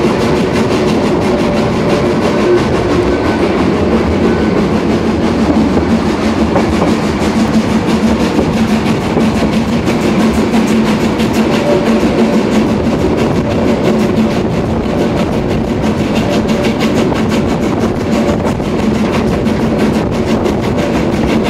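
Narrow-gauge steam train running, heard from a coach window: a steady clatter of wheels on the track with the steam locomotive working at the head of the train.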